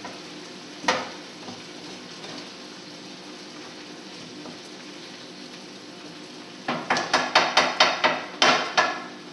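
Steak fajita meat sizzling steadily in skillets on a gas stove, while a cooking utensil knocks once against a pan about a second in, then clacks against it in a quick run of about eight knocks near the end.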